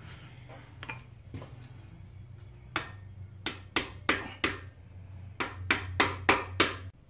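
Hammer blows on a socket being driven onto a stuck bolt at the water pump of an RB25DET engine: about fifteen sharp metallic knocks, spaced out at first and coming quicker near the end.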